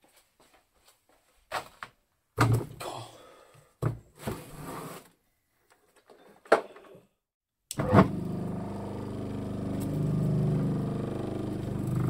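Heavy thuds and knocks as a large old electric motor is set down and shifted on a wooden workbench. About eight seconds in, after a sharp thump, the motor's rotor and triple-groove pulley spin on its bent shaft with a steady hum and rumble.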